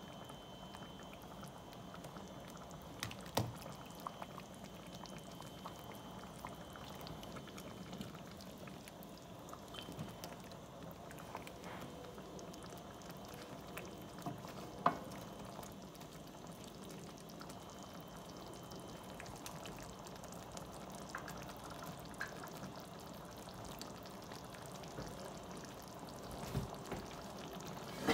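Shrimp simmering in a spicy butter sauce in a stainless steel pan, stirred with a wooden spoon. The spoon knocks against the pan a few times.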